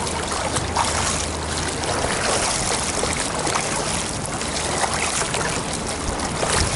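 Continuous splashing of a swimmer doing backstroke, both arms stroking through the water in alternation.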